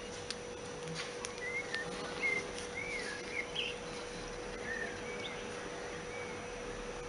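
Small birds chirping in short, scattered calls, mostly in the first half, over a steady low hum and background hiss, with a few faint clicks about a second in.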